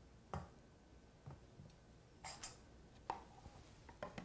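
Faint taps and scrapes of a spatula against a stainless steel mixing bowl as steamed broccoli is folded into batter, short knocks about once a second.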